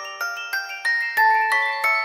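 Background music: a melody of single bell-like notes on a glockenspiel-type instrument, each struck and left to ring, about three notes a second in a high register.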